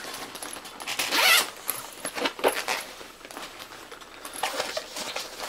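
Zipper on a Tumi laptop messenger bag being pulled open in several short strokes, the loudest about a second in, as a pocket is opened.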